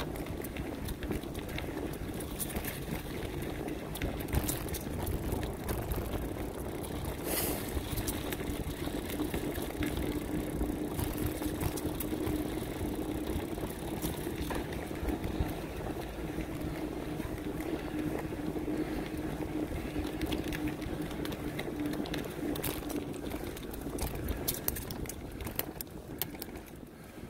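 Bicycle riding on pavement, picked up by a helmet-mounted camera: tyres rolling with wind rumble on the microphone, a steady hum that fades out a few seconds before the end, and occasional small clicks.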